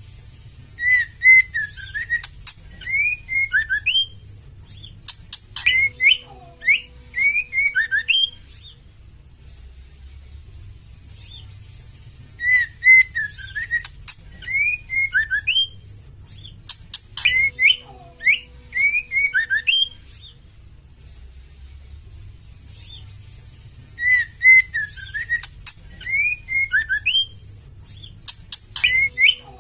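Female white-rumped shama singing in bouts of quick, varied whistled phrases mixed with sharp chips, each bout lasting a few seconds with short pauses between. The same bouts come back again and again, as in a looped recording, over a faint low hum.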